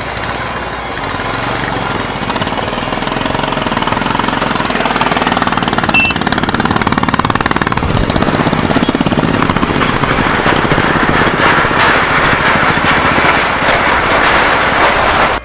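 Several single-cylinder motorcycle engines running at low speed in a group, a fast steady pulsing that grows louder in the first few seconds and fuller in the second half as the bikes ride off.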